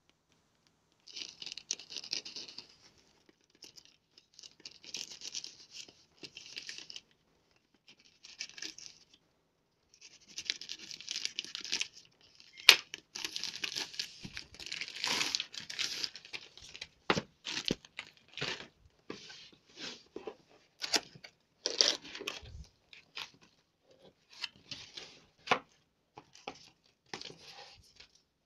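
Plastic postal mailer being slit with a small knife and torn open, the plastic tearing and crinkling in repeated short bursts with pauses between. There are a few sharp clicks and knocks as the cardboard box inside is handled and opened.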